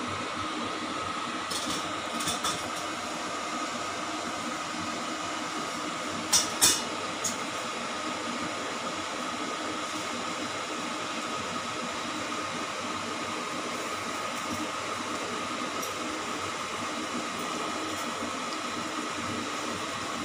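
Steady hiss of a gas burner heating oil, seeds and dried red chillies in a wok, with a few sharp pops about two seconds in and a louder pair about six seconds in as the tempering spices start to splutter.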